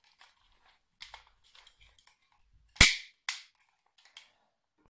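Toy cap-gun revolver firing: one sharp, loud crack near the middle, a smaller crack about half a second after it, and a few light clicks of the toy gun being handled around them.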